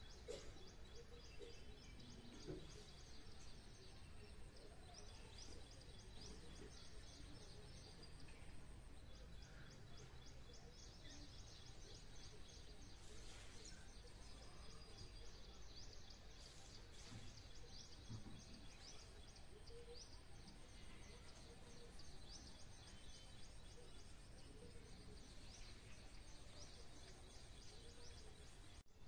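Faint outdoor ambience of small birds chirping, a quick run of short high chirps repeating all the way through, over a thin steady high whine.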